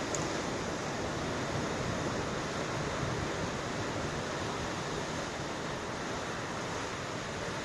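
Ocean surf and wind: a steady, even wash of wave noise without distinct breaking crashes.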